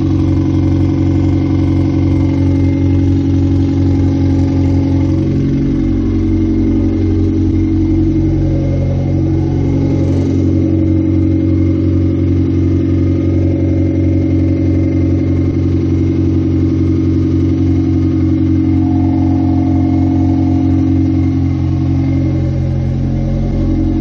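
1998 Honda CR-V four-cylinder engine idling steadily and loud, running on open headers with no exhaust system behind them. Its note shifts slightly about five seconds in.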